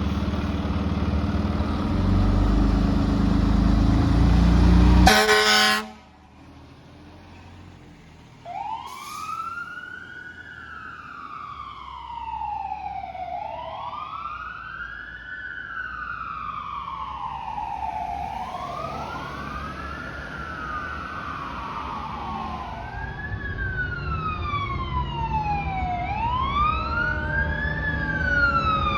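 Fire truck air horn blasting steadily for about five seconds over the engine, then cutting off sharply. A few seconds later a fire truck siren starts wailing, rising and falling about every two and a half seconds. Near the end a second siren joins with faster sweeps.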